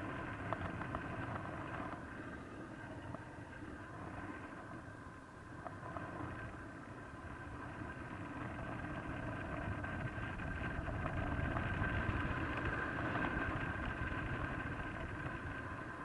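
Wind rushing over the microphone of a paraglider in flight, a steady rush that swells to its loudest about twelve seconds in.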